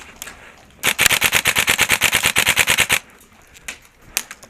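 Airsoft gun firing a full-auto burst of about two seconds, roughly a dozen shots a second, followed by a few single pops.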